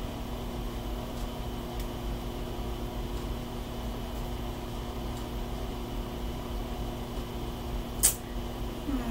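Steady low hum of room background noise, with a single short click about eight seconds in.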